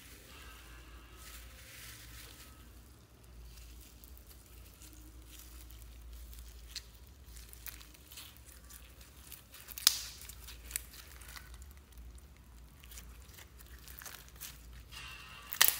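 Foam beads and clear slime (floam) being worked by hand: a steady crinkling, crackling rustle of the beads with many small clicks, and two sharp pops from the slime, one about ten seconds in and one near the end.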